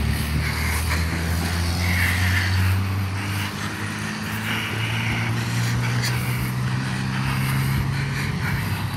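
A motor vehicle's engine running with a low, steady drone that shifts in pitch about three and a half seconds in.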